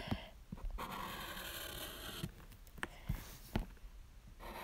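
Black marker pen drawing on a paper card: scratchy strokes with short pauses between them, and a few light taps.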